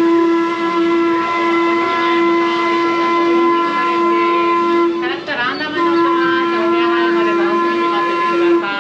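Steam whistle blowing a long, steady pitched blast that breaks off about five seconds in and sounds again until near the end.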